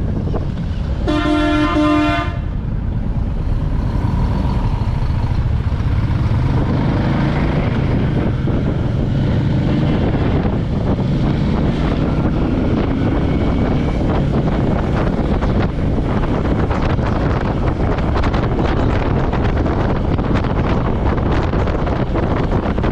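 Royal Enfield Meteor 350's single-cylinder engine running under way, with wind rushing over the microphone. About a second in, a vehicle horn sounds once for about a second.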